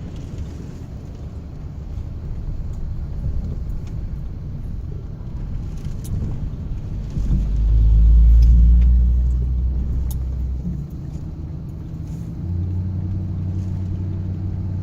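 Car driving along: low engine and road rumble, swelling loud for a couple of seconds about eight seconds in, then settling into a steady engine hum.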